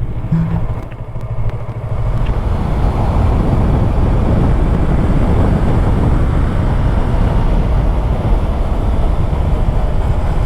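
Yamaha YZF-R3 motorcycle on the move: a steady rush of wind and engine noise on the rider's microphone, louder from about two seconds in.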